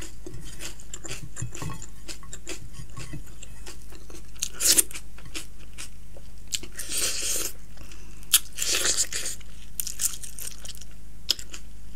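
Close-miked eating by hand: chewing with many small wet mouth clicks, and three louder noisy bursts about five, seven and nine seconds in as food is taken from the fingers into the mouth.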